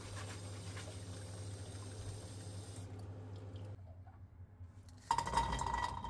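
Tap water running faintly over green pine cones in a wire-mesh strainer, fading out about three seconds in. Near the end the cones are tipped from the strainer into a stainless steel pot, landing with a clatter and a ringing tone from the pot.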